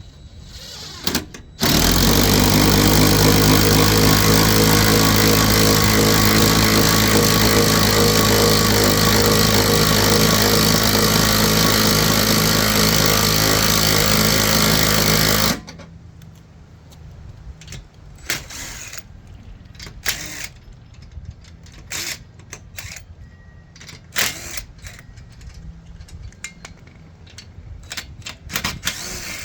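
Impact wrench running and hammering steadily for about fourteen seconds, then stopping suddenly, followed by scattered clicks and knocks of tools and parts being handled.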